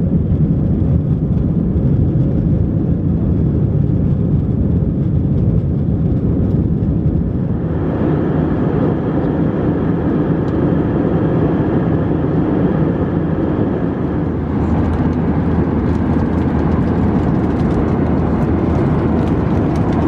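Airbus A320 cabin noise in flight: the steady roar of the engines and rushing air, shifting in tone about eight seconds in and again near fifteen seconds, the last part brighter with faint ticks.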